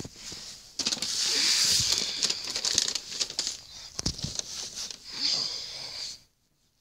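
Wrapping paper rustling and crinkling as a gift is wrapped and handled, with small taps and clicks; the sound cuts off suddenly about six seconds in.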